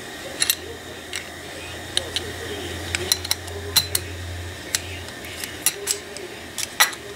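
Small metal Corvair distributor parts clicking and clinking together as they are handled and fitted in place: a dozen or so sharp, light clicks at irregular intervals, over a faint low hum that fades out about five seconds in.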